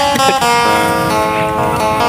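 Background music led by plucked acoustic guitar, held notes changing every half second or so.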